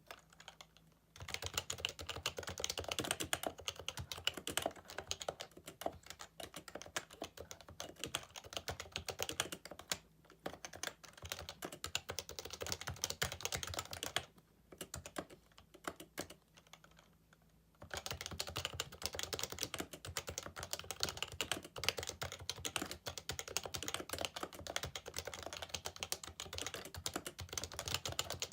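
Continuous typing on a Happy Hacking Keyboard Professional 2 with its Topre capacitive switches: a dense, rapid stream of key strokes, with a pause of a few seconds about halfway through before the typing resumes.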